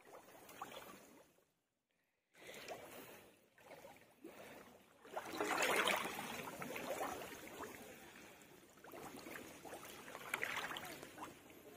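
Pond water sloshing and splashing around a person's legs as he wades through it, with a short break about two seconds in and loudest about six seconds in.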